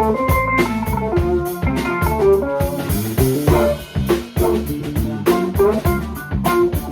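Funk band music: a guitar playing a melodic line over a drum kit keeping a steady beat.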